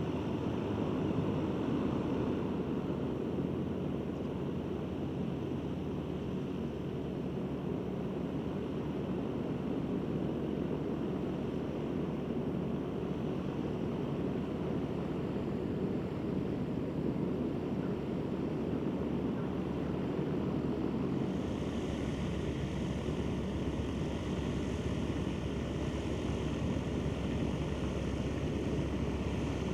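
Van's RV-8 single-engine propeller plane flying in, its engine and propeller droning steadily. The sound grows fuller about two-thirds of the way through, with more low rumble and hiss.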